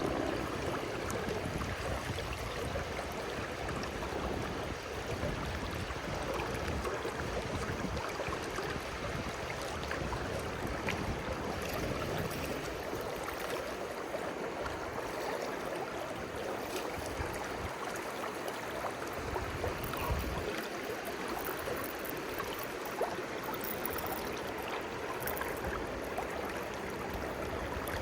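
River water rushing steadily, an even hiss with no let-up.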